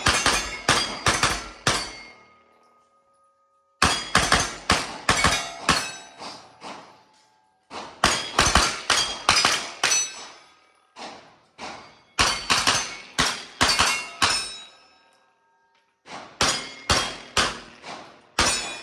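Rapid strings of shots from a Palmetto State Armory AK-V 9mm pistol-caliber carbine, several shots a second, with steel targets ringing on hits. There are about five strings, each separated by a short silence.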